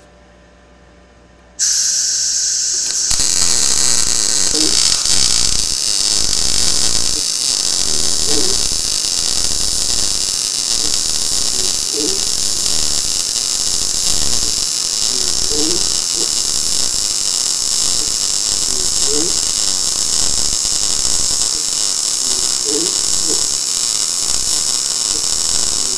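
Gas-shielded MIG welding arc from a Blue Demon BLUEARC 140MSI 110 V inverter welder running a bead on thin steel: a loud, steady sizzle that starts about three seconds in and keeps on without a break. Just before it, about a second and a half in, a hiss starts as the shielding gas pre-flows ahead of the arc.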